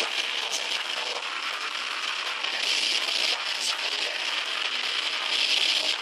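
Live metal band playing loud and continuously: distorted guitars, bass and drums with a vocalist screaming into a microphone. Recorded on a small camera microphone that is overloaded, so it comes across as a dense, harsh, crackling wall of noise with no low end.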